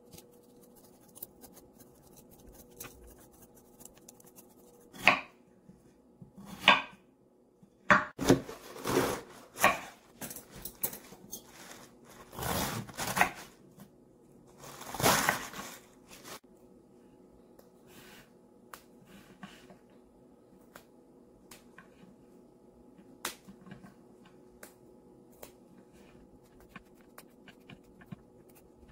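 Kitchen knife cutting a napa cabbage on a wooden cutting board: a run of loud cutting strokes through the middle, after two single cuts a few seconds earlier. Later only faint small clicks of hands handling vegetables.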